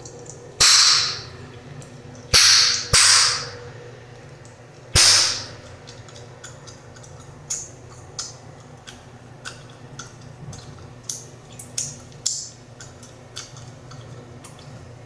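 Chewing gum popping and snapping in the mouth: four loud, sharp pops in the first five seconds, two of them half a second apart, then a run of quieter, quicker snaps.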